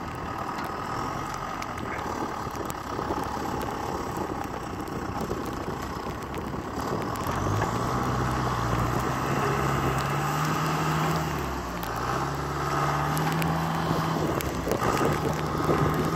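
Tractor engine straining under load as it tries to pull a car out of deep snow while its wheels slip. About halfway in it revs up in three surges, with short dips between them.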